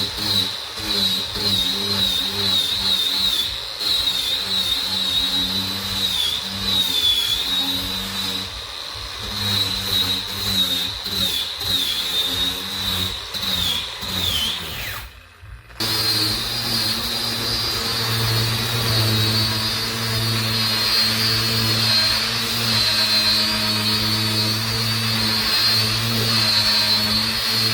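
Electric power tool motor running with a steady hum and a high whine that wavers as the load changes. It cuts off abruptly about halfway through and resumes running more evenly.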